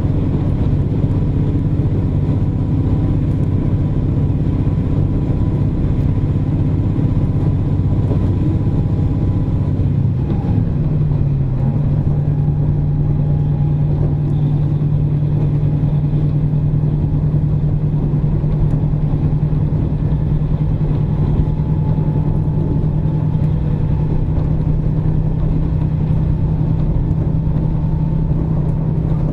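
KiHa 47 diesel railcar running, heard from inside the car: a steady diesel engine hum over track rumble. About ten seconds in, the engine note dips briefly and then settles into a single steady tone.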